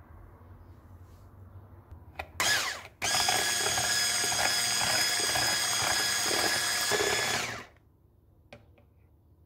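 Electric hand mixer beating eggs and sugar in a bowl. It gives a short burst about two seconds in, stops briefly, then runs steadily at one speed for about four and a half seconds before switching off.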